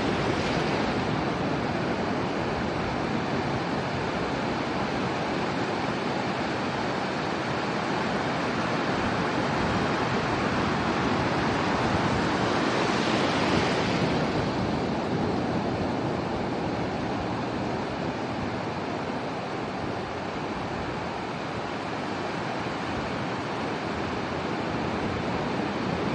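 Ocean surf on a beach: a continuous rush of waves breaking and washing in, swelling to a louder, hissier wave about halfway through and then easing back.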